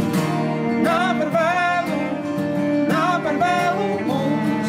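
Two acoustic guitars and a cello playing a song live, the guitars strummed under a melody line that slides and wavers.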